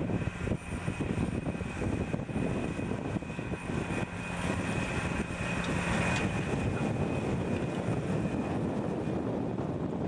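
McCormick 280 ZTX tractor engine running steadily under load while pulling a harrow through dry soil, a continuous low drone that grows a little louder about four seconds in.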